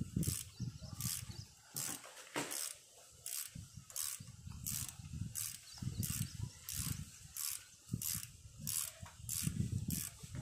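Small ratchet wrench with a socket bit clicking as it is swung back and forth, loosening the bolt of a motorcycle's bar-end weight. About fifteen short ratcheting clicks come at an even pace, roughly three every two seconds.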